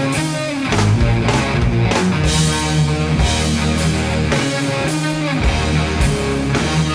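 Live rock band playing an instrumental passage: electric guitar lead over bass guitar and a drum kit, with drum and cymbal hits falling at a steady beat.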